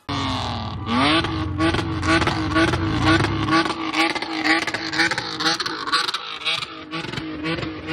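Car engine revved up over about a second and then held at high revs, with many sharp crackles over the steady engine note.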